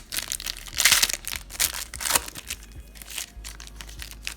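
Crinkling and rustling of a trading-card pack's wrapper and cards being handled, a quick run of crackly rustles, loudest about a second in.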